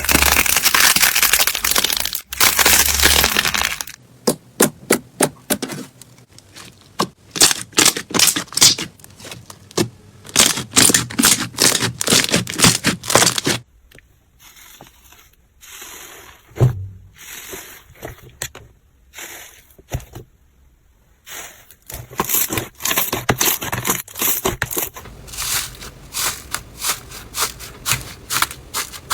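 Crunchy slime being worked, giving runs of sharp crackles and pops, with a quieter stretch midway.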